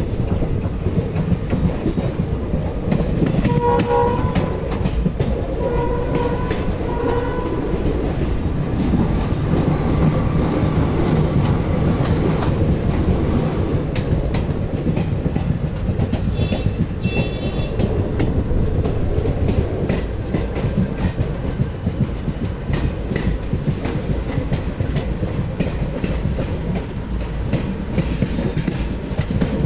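Passenger train running: a steady rumble with the clickety-clack of wheels over rail joints. A train horn sounds in a few short blasts about four to seven seconds in.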